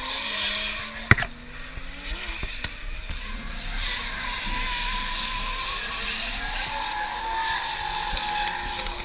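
Distant drift cars' engines revving up and down as they slide around the circuit, with tyres squealing. A single sharp crack comes about a second in.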